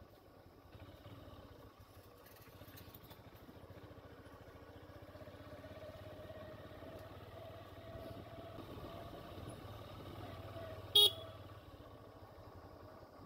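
A small vehicle's engine running steadily as it drives along, with one short, loud horn beep near the end.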